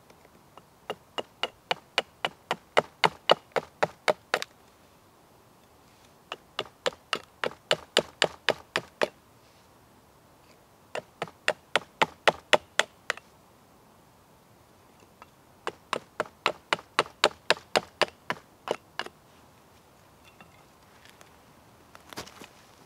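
Small hatchet knocking into the end grain of a hardwood fork blank, working the blade down into it: four runs of quick, sharp wooden knocks, about four a second, with short pauses between.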